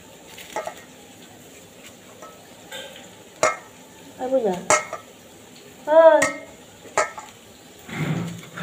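Hand mixing and squashing mashed green banana with gram flour and spices in a steel bowl, with several sharp clinks against the bowl. Two short voice sounds, the louder one about two-thirds of the way through.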